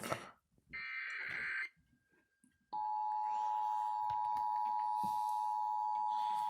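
Emergency Alert System test on a broadcast station: a one-second burst of the SAME digital header tones about a second in, then, after a short gap, the steady two-tone attention signal starting near three seconds in and still sounding at the end.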